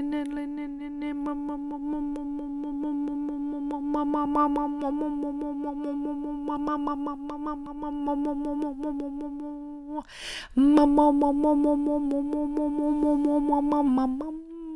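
A woman humming one long steady note with a rapid pulsing flutter, as part of a channelled chant-like song. She breaks for a breath about ten seconds in, then goes on, and the pitch dips and rises near the end.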